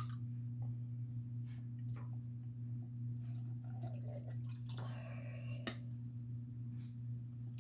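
Ladle scooping vinegar pickling solution and pouring it into glass canning jars: small clinks, drips and splashes, with one sharp clink about three-quarters through. A steady low hum runs underneath.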